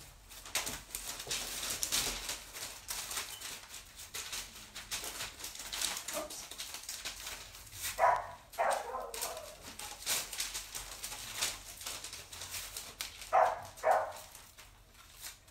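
A dog barking twice in quick succession about eight seconds in, and twice more about five seconds later, with faint clicking and rustling between the barks.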